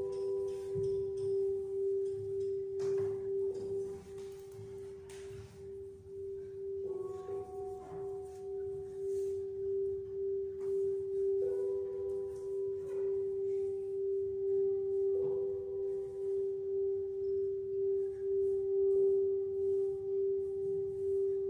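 Slow ambient music built on a steady drone tone held throughout, with higher sustained tones layering in and fading out every few seconds. Faint knocks of dancers' feet on the wooden floor now and then.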